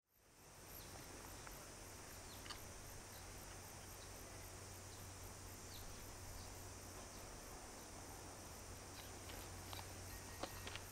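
Faint summer outdoor ambience of insects buzzing steadily at a high pitch, pulsing about two or three times a second, over a low steady hum, with a few faint clicks and short chirps.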